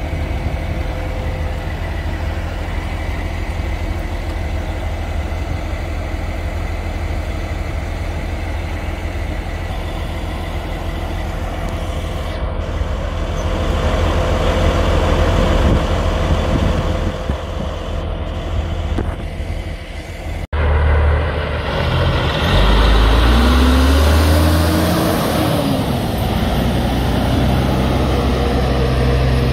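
Diesel semi-truck engine idling steadily. After a cut, a semi tractor pulls away hauling a loaded lowboy trailer, its engine revving up and dropping back as it gets under way.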